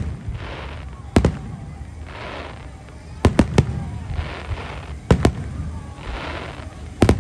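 Aerial fireworks going off: sharp bangs, single and in quick groups of two or three, with bursts of crackling hiss between them every couple of seconds.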